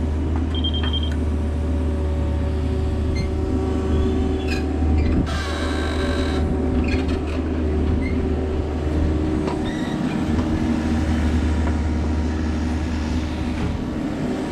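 Diesel engine of heavy digging equipment running steadily. A brief high tone comes under a second in, and a harsher, scraping burst lasting about a second comes around five seconds in.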